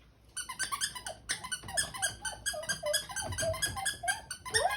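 A small pet's rapid series of short, high-pitched yelping cries, about four a second, starting just after the beginning.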